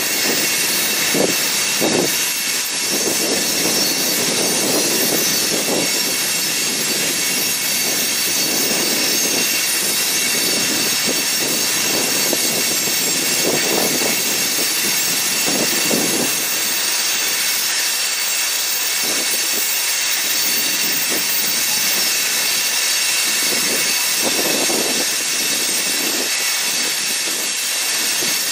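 Freight trains rolling across steel bridges: a continuous hiss of wheels on rail with a faint high squeal, broken by irregular low thumps as the cars pass.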